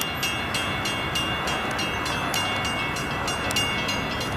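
A railroad warning bell ringing steadily at about three to four strokes a second over a steady rushing noise: the signal that a train is approaching.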